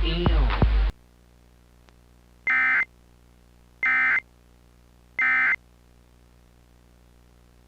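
Hip-hop music cuts off about a second in. Then come three identical short bursts of Emergency Alert System SAME digital data tones, buzzy and high-pitched, about a second and a half apart: the end-of-message signal that closes an EAS alert.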